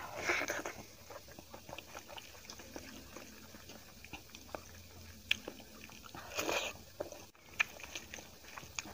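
A person eating close to the microphone, chewing a mouthful of rice and poori with wet lip-smacking clicks. There are two louder breathy bursts, one just after the start and one about six and a half seconds in.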